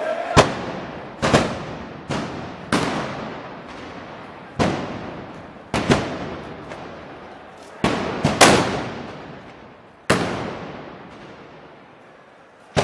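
A series of loud, sharp bangs, about ten at irregular intervals, some close together, each followed by a long echoing decay.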